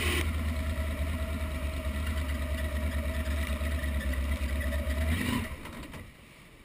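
A V-drive boat's inboard engine running steadily with a deep, even hum. The sound falls away about five and a half seconds in.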